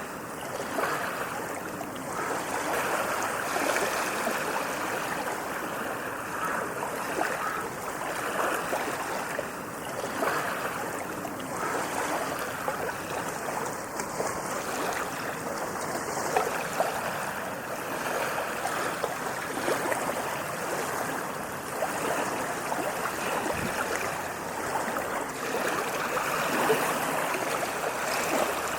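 Ocean waves washing onto a beach: a continuous rush of churning water that gently swells and eases in loudness.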